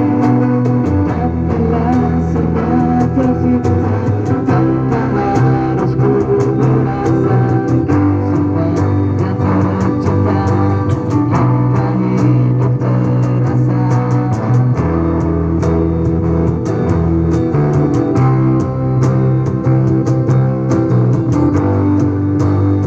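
Rock band music: guitar chords over bass notes that change every two to three seconds, with light cymbal ticks, played through a sound system during a sound check.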